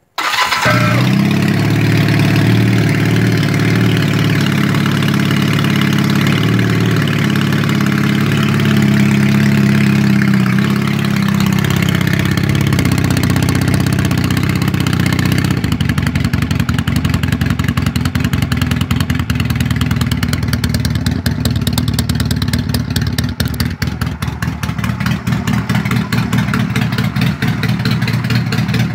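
Honda Rebel motorcycle engine firing up and running. It holds a fast, even idle for about the first eleven seconds, then settles over the next few seconds into a slower idle with a distinct, regular exhaust pulse.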